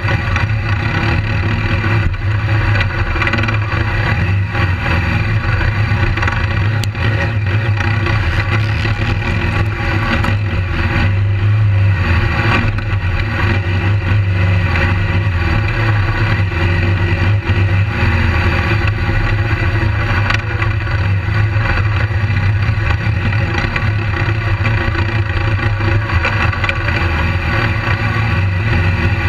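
BMW GS adventure motorcycle's engine running under varying throttle on a dirt track, picked up close by a camera mounted on the bike, with a steady low drone that rises and falls and a couple of brief knocks from the rough ground.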